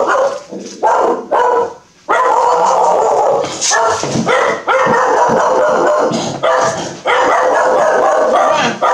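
A dog barking and yelping in loud bouts of a second or two each, with short breaks between.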